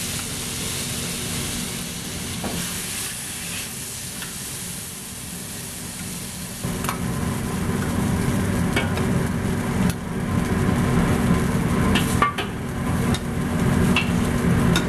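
Stir-fry sizzling in a hot wok as a metal wok spatula and ladle scoop it out, with several sharp clinks and scrapes of metal on the wok and plate from about halfway through. A steady low hum underneath grows louder at about the same point.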